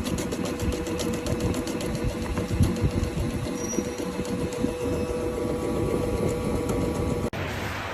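Small electric onion dicing machine running: a steady motor hum with a rapid mechanical clatter from the cutting head. The sound breaks off abruptly near the end and gives way to a similar machine noise.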